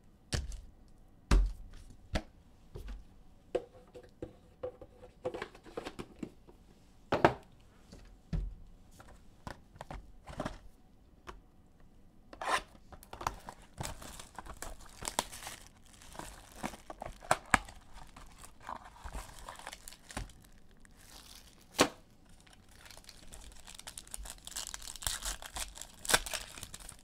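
Trading-card pack wrappers being torn open and crinkled, with sharp taps and clicks from cards and packs being handled. The crinkling thickens through the second half and is densest near the end.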